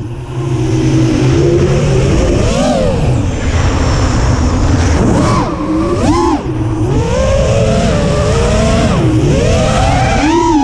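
FPV quadcopter's brushless motors and propellers whining, the pitch swinging up and down sharply several times with throttle as it climbs, flips and dives, over a low rush of air.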